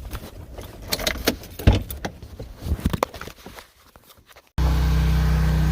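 Scattered light clicks and knocks of handling, then about four and a half seconds in an abrupt switch to an engine running steadily with a low hum.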